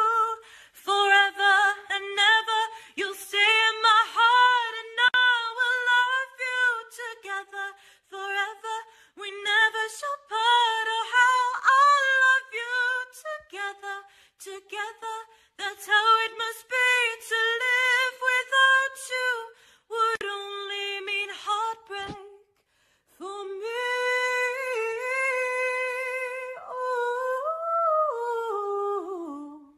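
A woman singing solo without accompaniment, her voice bending and wavering through melodic runs. She breaks off briefly about twenty-two seconds in, then ends on a long note that slides down.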